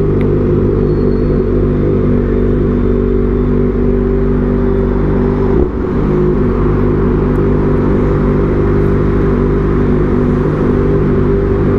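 Kawasaki ZX-4RR's 399 cc inline-four engine running at steady high revs under way. About halfway through it briefly drops and then picks up again.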